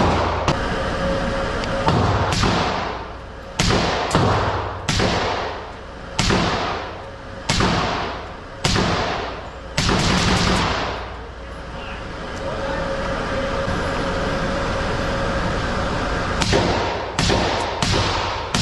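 A firearm fired repeatedly: single shots about a second apart, each with a ringing echo tail, then a pause of several seconds and a quicker string of shots near the end.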